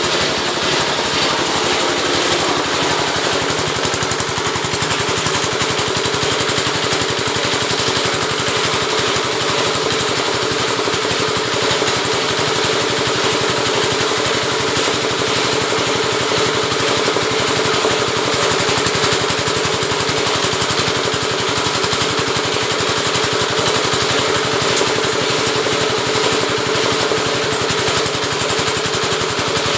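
Oil palm leaf-rib (lidi) stripping machine running steadily, its small engine giving a loud, fast, even chugging with a constant hum.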